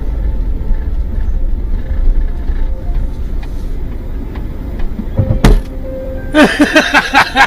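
Low, steady rumble of a car driving, heard from inside the cabin. A knock comes about five and a half seconds in, and voices break in near the end.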